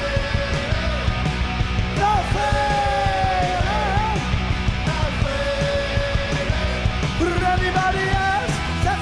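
Punk rock band playing live: distorted electric guitar, bass and drums at a fast, steady beat, with long held notes that bend in pitch about two seconds in and again near the end.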